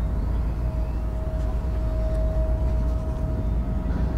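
Diesel-electric freight locomotive running at low speed as it pulls a cut of cars: a steady low rumble with a steady droning tone.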